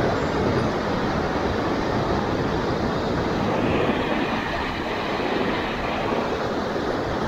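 A fast, foaming mountain stream rushing across a rough road: a steady, unbroken noise of churning water.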